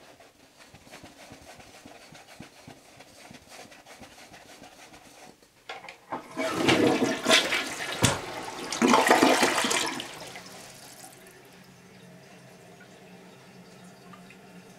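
Toilet flushing a load of toilet paper: about six seconds in, loud rushing and swirling water lasts about four seconds, with a sharp knock near the middle. It then dies down to a faint steady hiss.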